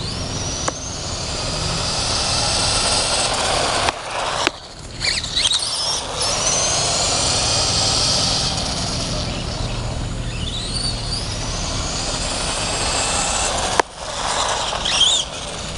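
Small electric motor of a toy-sized car whining, its pitch rising and falling several times as it speeds up and slows down over a steady rushing noise.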